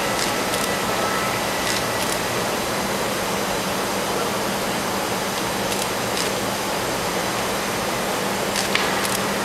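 Steady mechanical hum and rushing air noise with a constant low hum tone, broken by a few faint clicks.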